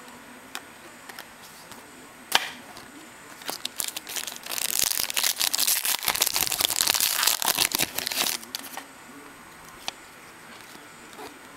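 Foil wrapper of a trading-card pack being torn open and crinkled, a dense crackling that lasts about four seconds in the middle. A single sharp click comes a couple of seconds before it.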